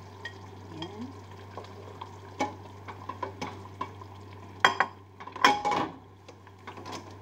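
A plastic spatula stirring vegetables into a stew in a stainless steel pan, knocking and scraping against the metal with scattered clicks and a few louder clatters between about four and a half and six seconds in. A steady low hum runs underneath.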